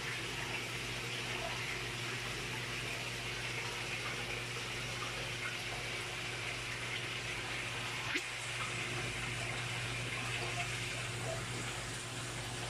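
Water running and splashing steadily into a fish pond, with a low steady hum underneath. A single brief click about eight seconds in.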